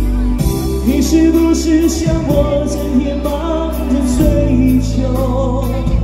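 A man singing live into a microphone over a pop backing track with a steady drum beat.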